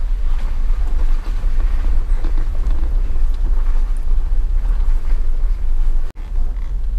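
Off-road vehicle driving along a muddy, rocky trail: a deep steady rumble with wind on the microphone. The sound drops out for an instant about six seconds in.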